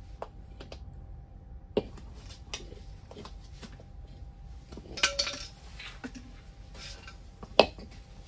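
Steel tire spoons clinking and scraping against the metal rim of a Kaabo Wolf King scooter's rear hub motor as the tire is levered off: scattered sharp metallic clinks, with a short cluster about five seconds in and the loudest clink near the end.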